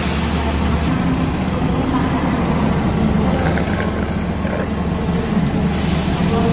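Diesel railcar standing with its engines idling, a steady low drone. Near the end, a loud hiss of air being released starts up.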